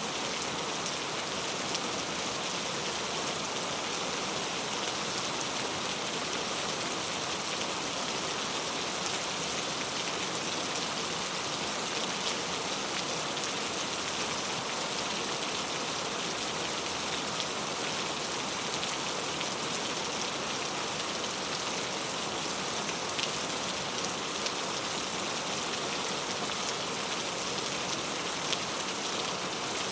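Steady rain falling, an even hiss with many fine drop ticks throughout.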